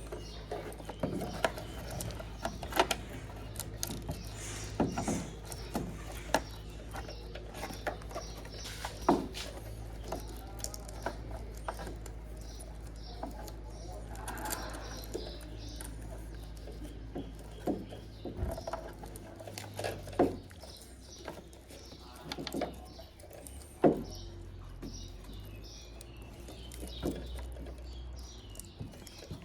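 Scattered plastic clicks and knocks of a taillight housing being handled and pushed into its opening in the truck body, over a steady low hum. Birds chirp in the background now and then.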